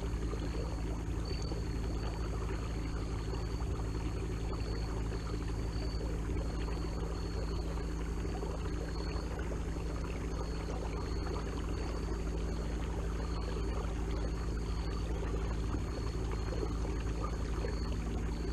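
Watersnake T24 electric trolling motor running steadily, a low even hum with water churning around the propeller. A thin, wavering high whine sits above it.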